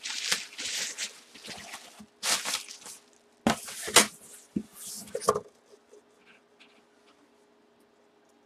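Cardboard box being handled and set down on a tabletop: rustling and scraping with a few sharp knocks, stopping about halfway through.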